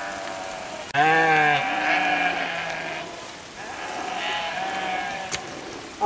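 A flock of sheep bleating. A loud, wavering bleat starts about a second in and is drawn out for about two seconds, and a second long bleat comes near the end.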